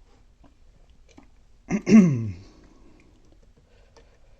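A man's short vocal groan, falling steadily in pitch, about two seconds in, with faint small clicks around it.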